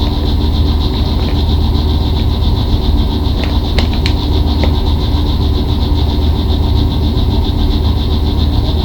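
Steady low hum, with a few faint crinkles from a foil chip bag being handled about four seconds in.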